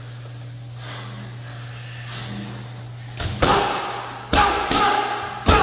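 Boxing gloves striking focus mitts and a padded body shield: about five sharp smacks in quick combinations over the last two and a half seconds, after a few seconds of a low steady hum.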